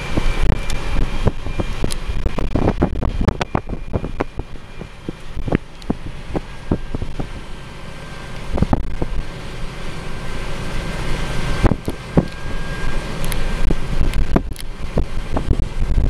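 Road noise from a passing vehicle with wind on the microphone, a steady rumble broken by many short knocks and thumps.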